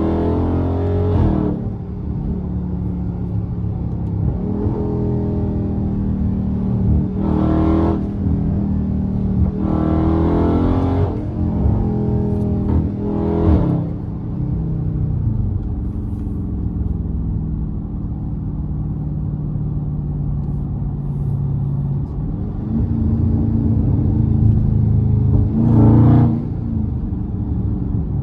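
Dodge Scat Pack's 392 (6.4-litre) HEMI V8 pulling hard about five times, its pitch climbing on each pull. Between the pulls it runs steady and lower while cruising.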